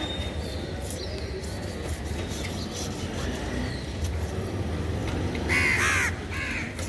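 A crow cawing twice near the end, a long caw then a short one, the loudest sound, over a steady low background rumble. Underneath is the faint scraping of a knife taking scales off a rohu.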